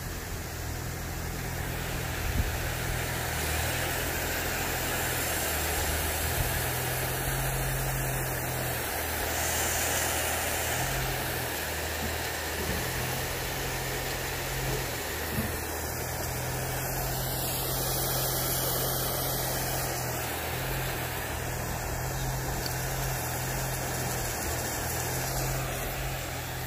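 Sprinkler head spraying water over a lawn: a steady hiss, over a low steady rumble.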